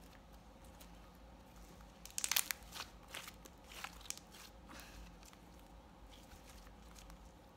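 Sand slime being squeezed and stretched by hand, giving a quick run of small crackling clicks and pops. The clicks are thickest about two seconds in and thin out by about five seconds.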